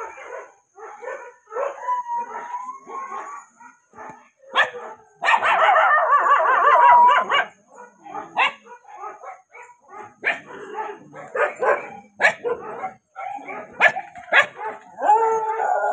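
Several caged shelter dogs barking and yelping in an irregular chorus, with a long drawn-out howl about five seconds in that lasts two seconds and is the loudest part.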